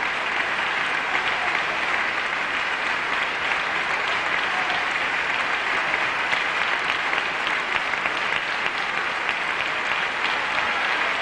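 Large concert-hall audience applauding steadily after an opera aria.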